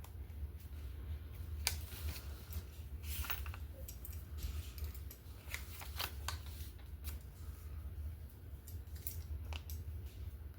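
A hand-held eyelet setter working an eyelet into a paper bookmark: scattered short clicks and snips with light paper rustling, over a steady low hum. The setter takes some force to squeeze.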